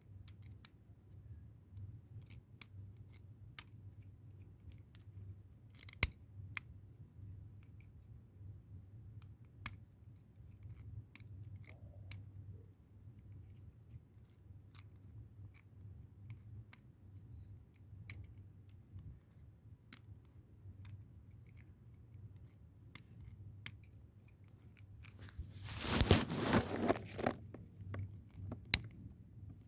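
Bonfire crackling: irregular sharp pops and snaps over a steady low hum, with a louder rustling burst lasting a couple of seconds near the end.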